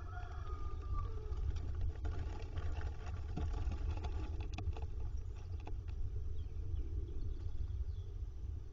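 Steady low rumble on the nest-box microphone, with scratchy rustles and clicks in the middle as a little owl shifts about in its wood-shaving bedding.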